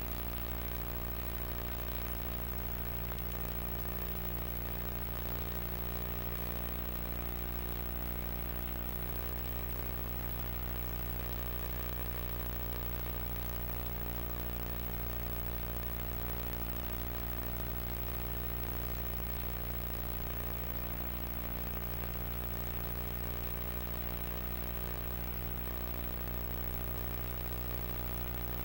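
A steady low electrical hum with a buzz of evenly spaced overtones above it, not changing at all.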